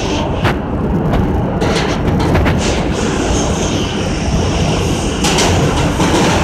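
R160 subway train running through a tunnel, heard from the cab: a steady rumble of wheels on rail, with sharp clicks as the wheels cross the track, a cluster in the middle and another about five seconds in.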